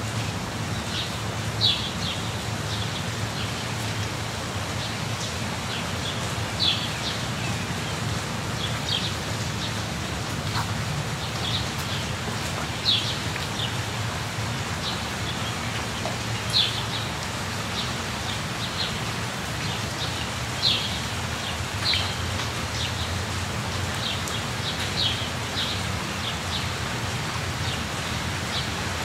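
Steady rain falling, while a bird gives short, high chirps every few seconds.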